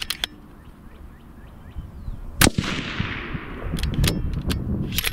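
A single shot from a 6.5 Creedmoor bolt-action rifle fitted with a muzzle brake, about two and a half seconds in, with an echo trailing off for about a second. Around it are sharp metallic clicks of the rifle's bolt being worked.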